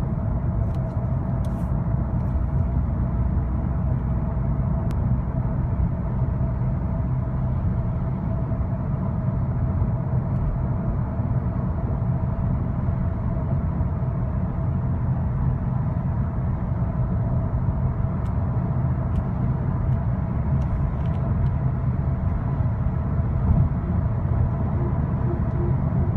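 2010 Skoda Octavia 1.6 CR TDI driving at speed: steady road and engine rumble with a steady whine held over it. The whine comes and goes above about 60 mph with the pedals untouched, and its cause is unknown to the owner.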